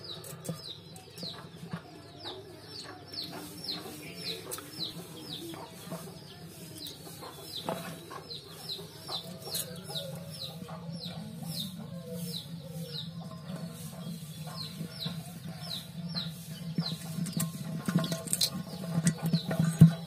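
A bird peeping over and over: short, high, falling peeps about two to three a second, over a low steady hum, with scattered clicks and a sharp knock near the end.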